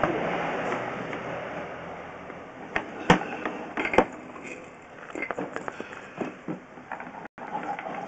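Handling noise from a drain inspection camera rig being pulled back through a stormwater pipe. A rushing noise fades over the first couple of seconds, then come irregular clicks and knocks, two louder ones about three and four seconds in and a patter of small ticks after.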